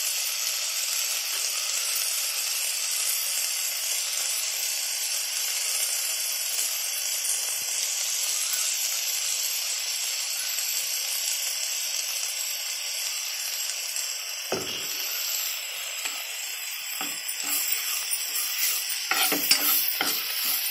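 Chopped vegetables and sweet corn sizzling in butter in a pan, a steady hiss. From about two-thirds of the way through, a steel spatula scrapes and knocks against the pan as the ground corn paste is stirred in, louder near the end.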